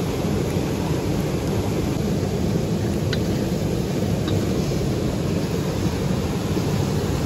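River water rushing over rocks: a steady, deep rushing that does not change, with a couple of faint ticks a few seconds in.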